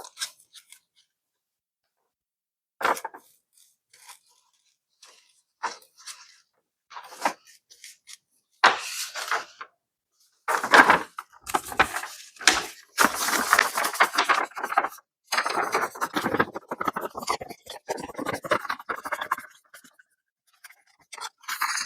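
Close-up handling of art-kit packaging: scattered scrapes and crinkles at first, then near-continuous rustling, scraping and tearing from about halfway through.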